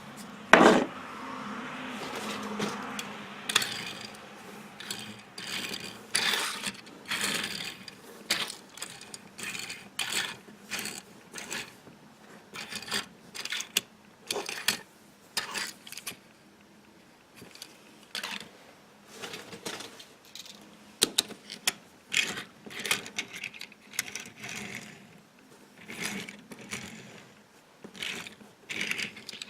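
Die-cast toy cars being handled: irregular clicks, clinks and small knocks of metal and plastic, with some rustling. There is a sharper knock about a second in.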